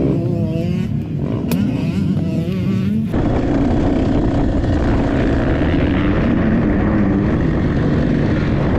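A motocross bike engine revving nearby, with one sharp click about a second and a half in as a motocross boot buckle is snapped shut. About three seconds in, an abrupt change to a dirt bike engine heard from on board, running hard at speed, steady under a rush of wind noise.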